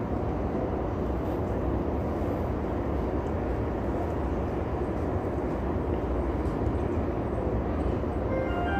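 E233 series 2000 electric commuter train running at speed, heard from inside the car: a steady, even rumble of wheels on rail. Near the end a short run of clear chime tones begins.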